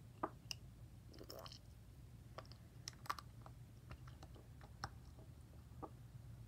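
Plastic stir stick scraping and clicking against the inside of a small ceramic cup as dried-out ink is stirred up with water: faint, scattered clicks over a low steady hum.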